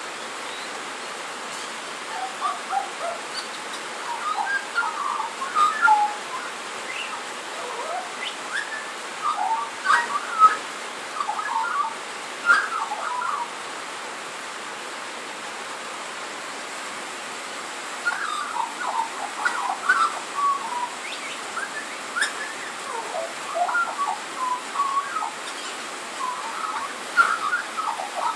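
Australian magpie singing, a rambling run of rapid, varied warbling notes with a pause of about four seconds near the middle. Steady rain noise on a tin carport roof underneath.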